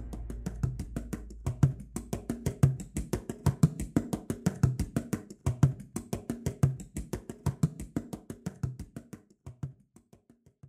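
Percussive outro music: a fast run of sharp clicks over a low drum beat about once a second, fading out and stopping near the end.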